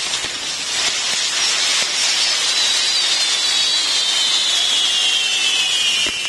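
Ground fireworks burning on a metal frame of wheels: a loud, steady hiss of fountains and sparks, with a high whistle from about two seconds in that slowly falls in pitch.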